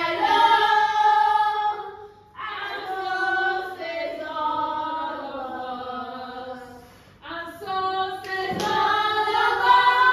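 A group of children singing together as a choir, in three phrases broken by two short pauses.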